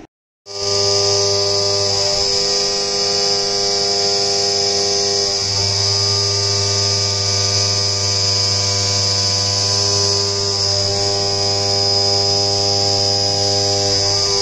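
DIY epoxy-granite vertical CNC mill cutting a metal block under flood coolant: a steady, loud spindle whine with a high hiss of spraying coolant. Its tones shift slightly a few times as the cutter moves through the part.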